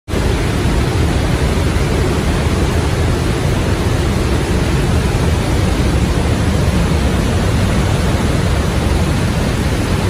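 Trümmelbach glacier waterfall, meltwater rushing through a narrow rock gorge inside the mountain: a loud, steady rush of water, heaviest in the low end.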